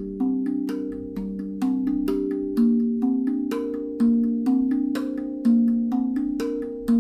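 Eight-tongue stainless steel tongue drum (Zen-Percussion Guda NEO 8) played with the fingers: struck notes at about three a second, each ringing on under the next, with a louder accent roughly every second and a half. It is tuned to its 'African' scale, G Bb C D F G Bb C.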